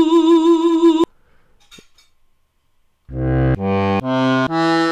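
Sampled instrument presets from a Ketron SD90 SoundFont played on a keyboard: a held note with vibrato that cuts off about a second in, a pause of near silence, then a string of short, evenly spaced notes from about three seconds in.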